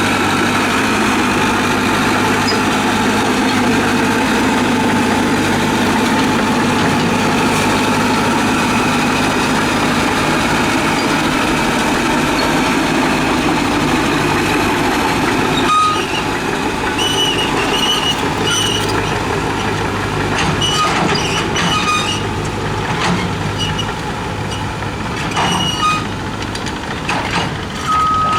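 Heavy diesel earthmoving machine's engine running steadily. About halfway through, a reversing alarm starts beeping, mixed with scattered metal knocks and clanks.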